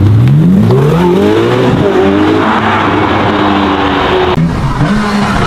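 Ferrari SF90's twin-turbo V8 accelerating hard: the revs climb steeply, drop at an upshift about two seconds in, and climb again. Near the end the sound cuts abruptly to another engine at steadier revs.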